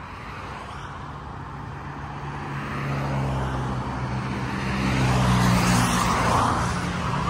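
Diesel engine of an Isuzu FXZ 360 ten-wheel truck idling with its cooling fan running. The engine is left on to shed heat after overheating because the radiator is clogged with dust. The steady hum grows louder from about three seconds in, with road traffic passing.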